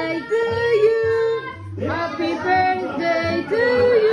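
Music with a woman singing long, held notes over an instrumental accompaniment with a steady bass line.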